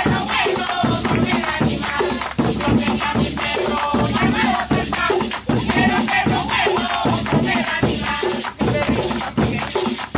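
Live folk drumming with singing: hand drums struck in a quick steady rhythm, a rattling hand percussion instrument, hands clapping along and voices singing.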